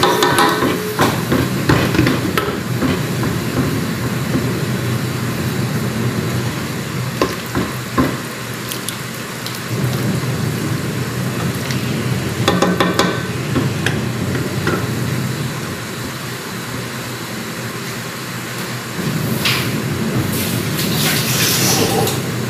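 Wooden spoon stirring miso broth with freshly added water in a stainless steel pot, over a steady hiss. The spoon knocks against the pot now and then.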